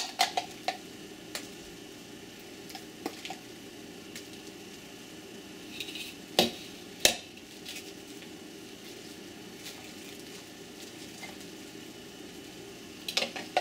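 A metal spoon scraping and knocking against a plastic chopper bowl and a small skillet while scooping and pressing thick shrimp paste. Scattered clicks and taps, the loudest about seven seconds in.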